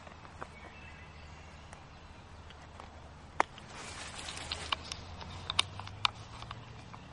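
Rustling and crackling in dry leaves and twigs, with a sharp snap about three and a half seconds in, then a denser run of crackles for a couple of seconds.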